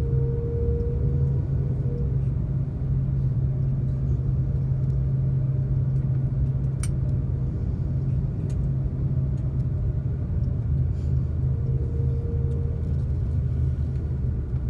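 Steady low rumble inside the cabin of an Airbus A330-200 taxiing after landing, engines at idle, with a constant low hum. A faint higher whine sounds at the start and again about twelve seconds in, and a single sharp click comes about seven seconds in.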